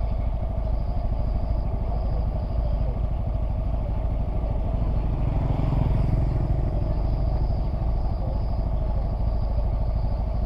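Small motorcycle engine idling steadily close by. A step-through motorcycle passes about six seconds in, briefly louder, then fades.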